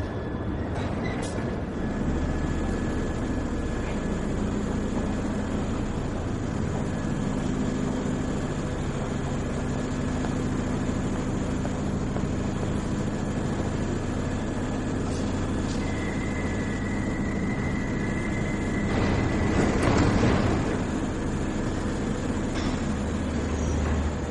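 A train running at a station platform: a steady low rumble with an engine hum. A high steady whine joins partway through, and a louder rush of noise swells and fades about twenty seconds in.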